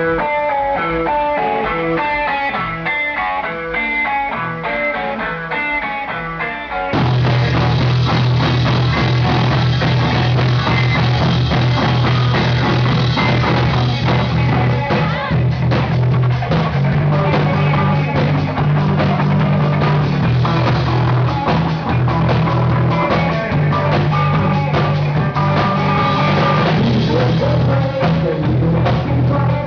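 Rock band playing: a guitar picks out a repeating intro of single notes, then about seven seconds in the full band comes in with drums and a bass line, much fuller and louder.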